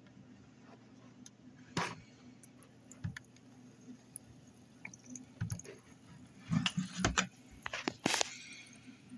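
White vinegar poured into a small plastic measuring cup over a corroded battery contact, with a splash and trickle clustered about six to eight seconds in. A few scattered clicks and knocks of the cup being handled come before it.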